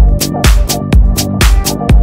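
Disco-house dance music: a four-on-the-floor kick drum about twice a second, with off-beat hi-hats between the kicks over held chords.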